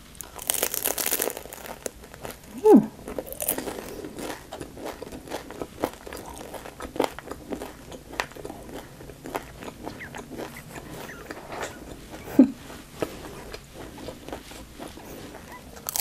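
A crunchy bite into a deep-fried Vietnamese egg roll about half a second in, then chewing with many small crunches and crackles from the crisp fried wrapper.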